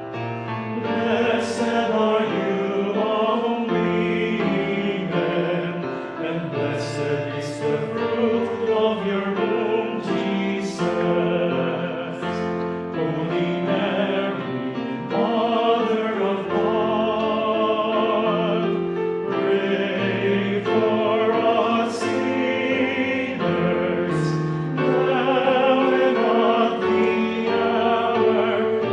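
Operatic classical singing with strong vibrato over sustained low accompanying notes, the words' hissing consonants cutting through now and then.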